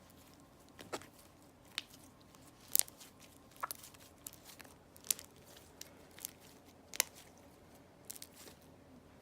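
Thick slime being worked to mix in purple dye, giving irregular sharp sticky clicks and pops, about a dozen scattered through.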